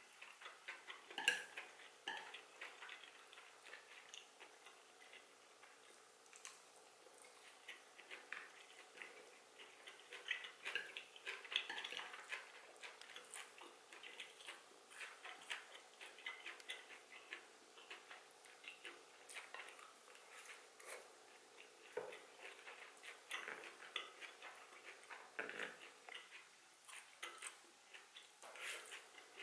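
Close-up eating sounds: wooden chopsticks clicking and scraping on a ceramic plate as side dishes and rice are picked up, with soft chewing between. The clicks are small and scattered, with a sharper one about a second in.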